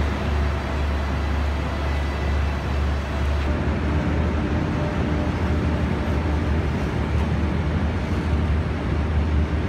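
Low, steady rumble of the Eastern & Oriental Express passenger train moving slowly along the platform, with a faint steady hum joining about three and a half seconds in.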